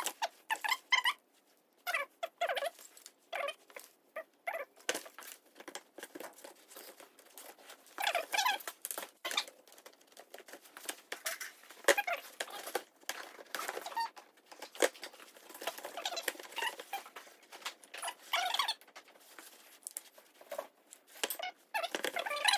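Disassembling a truck carburetor by hand: irregular clicks, taps and clatter of small metal parts and tools being handled, with scraping and rustle between them.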